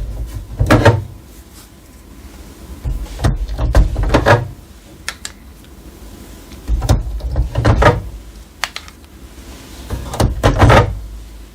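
Plastic ink cartridges being unclipped and pulled out of an HP OfficeJet Pro printer's cartridge carriage: four separate bursts of clicks and knocks, a few seconds apart.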